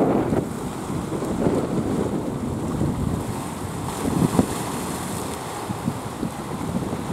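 Small waves washing and foaming over shoreline rocks, with a louder surge a little over four seconds in, and wind rumbling on the microphone.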